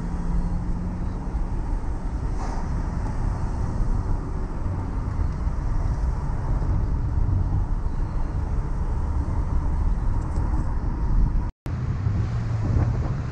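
Steady low rumble of wind and road noise from a vehicle moving at speed, picked up by an on-board camera. The sound drops out for an instant near the end, then similar traffic rumble resumes.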